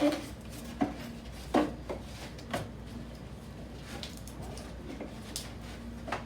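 A handful of light knocks and taps at irregular intervals, about one a second at first and sparser after three seconds, over a faint steady hum.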